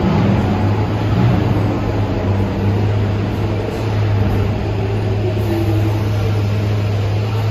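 New York City subway train in the station, a loud steady low hum over a rumbling noise, with a faint short pitch glide about two-thirds of the way through.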